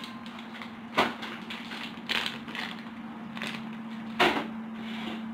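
A large cardboard TV carton being handled and opened: a sharp knock about a second in and another louder one near the end, with shorter scrapes of cardboard between.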